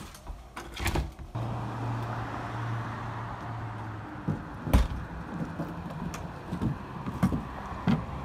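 Steady outdoor traffic hum, with a door banging shut about halfway through, followed by a run of lighter thumps.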